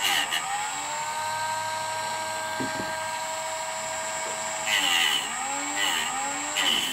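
Dremel rotary tool running with a steady high whine. From about five seconds in its pitch dips and recovers several times as the bit is pressed into the Hogue AR-15 grip to grind off a piece, each dip with a short burst of grinding noise.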